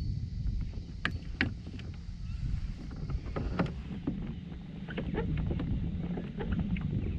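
Wind rumbling on the microphone aboard a kayak, with scattered sharp clicks and knocks, a few at first and more often in the second half.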